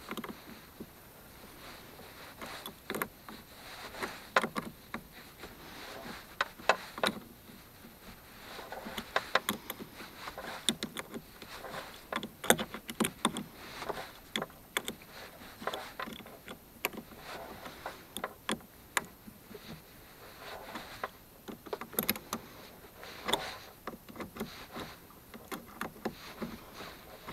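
Irregular clicks, knocks and scraping of hands working in a Jeep TJ's open engine bay at the battery and its cables, with the engine not running; now and then a sharper metallic knock.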